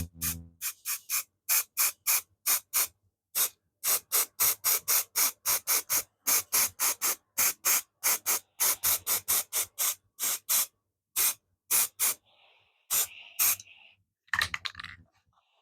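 Aerosol spray paint can sprayed in many short bursts, about two or three a second, with a fainter steady hiss near the end.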